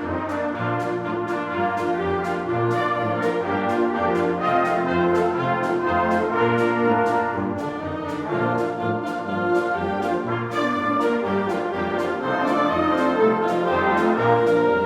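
Wind band playing, brass to the fore with trombones, trumpets and horns, over a steady beat of percussion strokes.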